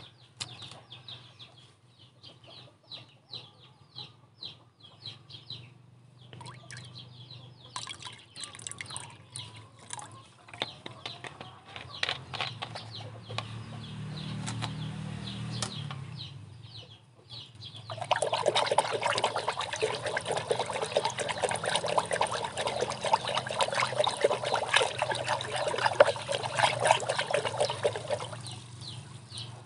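Water in a round tub churned and splashed hard with a stick for about ten seconds, starting a little past halfway, stirring yeast into a water-flea culture. Before that, only faint scattered ticks and small splashes.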